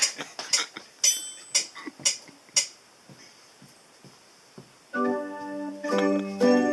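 A steady click about two times a second, every fourth one stronger, stops after a couple of seconds; after a short pause a Yamaha electronic keyboard comes in with sustained chords.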